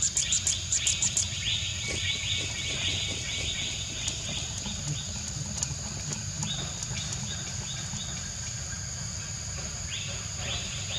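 Natural outdoor ambience: a steady high insect drone, with a fast pulsed chirping over the first second or so and several runs of quick chirps later on.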